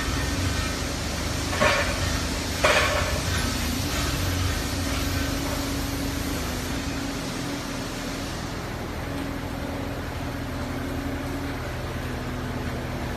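Mini-excavator's diesel engine and hydraulics running steadily, with a steady tone that steps slightly up and down in pitch as it works. Two sharp knocks come near the start, a second apart, and the engine settles to a lighter, quieter note about halfway through.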